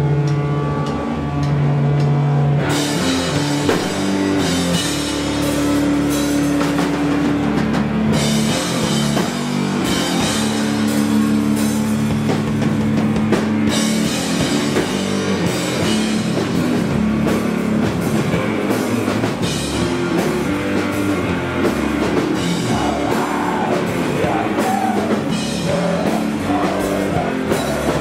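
Live doom metal band playing loud: distorted guitar and bass hold low notes alone, then the drum kit with cymbals comes in about three seconds in and the full band plays on.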